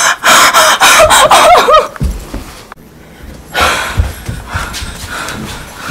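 A woman panting hard and gasping in fright, quick loud breaths with a few short whimpers, for about two seconds. Then it goes quieter, with another heavy breath near the middle and a couple of low thuds.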